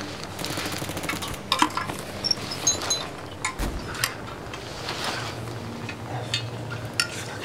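Scattered light metallic clinks and clicks, with rustling, from soldiers' kit and rifles being handled as they move on the forest floor.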